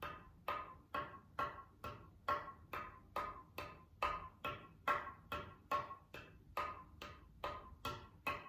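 Muted darbuka played with single-finger strokes in an even run of light taps, about two a second, each with a short ring. The strokes are struck as hard as possible yet come out quiet, because the drum is muted for silent practice.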